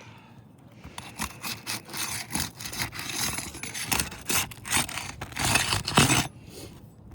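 Asphalt roof shingles being pried up and lifted by hand: gritty scraping and rubbing in irregular strokes, starting about a second in, loudest just before they stop near the end.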